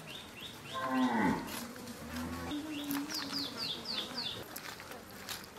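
A cow mooing: a call that falls in pitch about a second in, then a lower held note, over a run of short high chirps repeating about four times a second.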